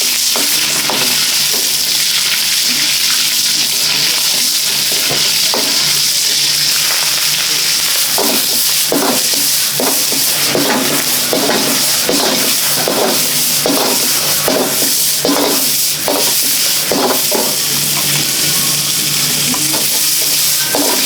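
Fried rice sizzling steadily in a hot wok while being stirred. About a third of the way in, the utensil starts striking and scraping the wok, roughly twice a second.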